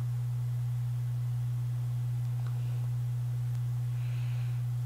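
A steady low hum, one unchanging tone with nothing else of note over it.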